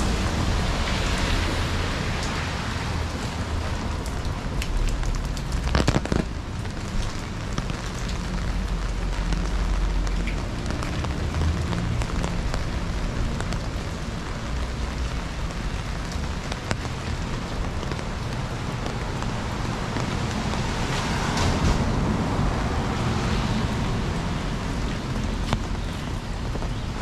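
Steady rain falling on a city street, a continuous hiss with a low rumble beneath. A sharp knock about six seconds in, and the hiss swells louder twice, near the start and about twenty-one seconds in.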